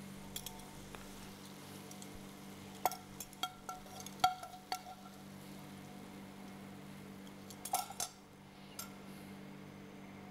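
Metal cutlery clinking against a frying pan and a plate as a cutlet is slid out of the pan onto the plate. There are light clinks with a brief ring: a handful a few seconds in and two more near the end, over a faint steady hum.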